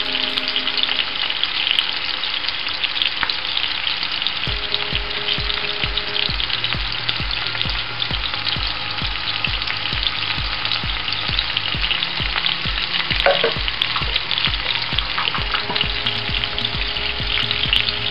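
Chopped onions, garlic and ginger frying in hot oil in a skillet: a steady sizzle with fine crackling.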